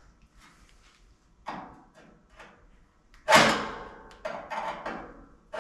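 Steel sheet-metal door panel being handled and pressed into place: a loud metallic clank with a ringing tail a little past the middle, between lighter knocks and taps.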